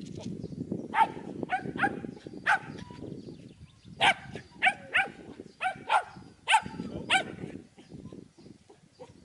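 Shetland sheepdog barking repeatedly while running, in about eleven short, high-pitched barks: four in quick succession, a pause, then a second run of seven.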